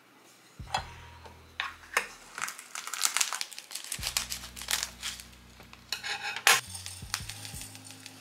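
Foil tea pouch crinkling and rustling as it is opened and handled, with light clinks among the crinkles.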